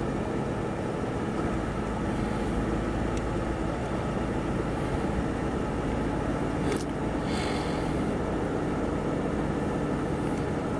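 Police patrol car idling: a steady low engine hum, with one faint click about three seconds in.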